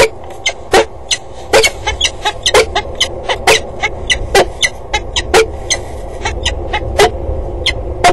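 Peregrine falcon calling: short, sharp, harsh calls repeated about once a second, with fainter calls between.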